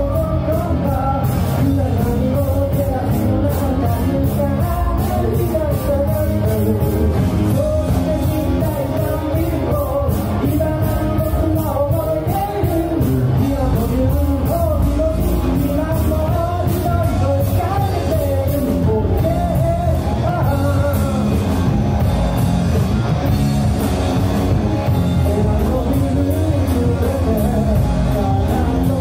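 Rock cover band playing live: a male lead voice sings over two electric guitars, an electric bass and a drum kit keeping a steady driving beat.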